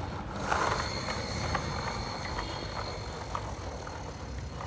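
Plastic toy trucks being handled on a tiled floor: a scatter of light, sharp plastic clicks over a steady low rumble.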